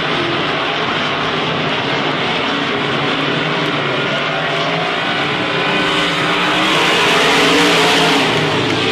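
Several IMCA Modified dirt-track race cars with V8 engines running at racing speed, a steady drone of overlapping engines. It swells to its loudest about seven to eight seconds in as a car passes close by.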